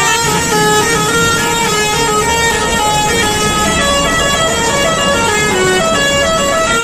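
Indonesian 'telolet' bus horn playing its tune: several horn tones sound together and step from note to note in a melody of held notes.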